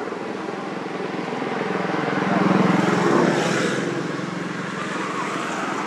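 Engine of a passing motor vehicle, growing louder to a peak about halfway through and then fading.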